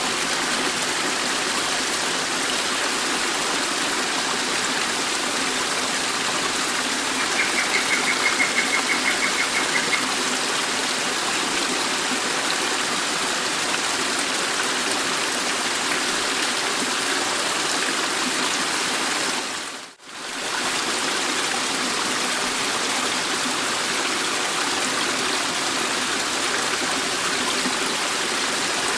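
Steady rushing of a waterfall. For about three seconds, starting some seven seconds in, a rapid high ticking of several beats a second sits over it, and about twenty seconds in the rush fades out for a moment and comes straight back.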